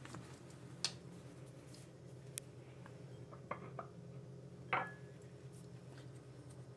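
A small white bowl handled in a porcelain bathroom sink: a few light clicks, then a knock with a short ring about two-thirds of the way through as it is set down, over a low steady hum.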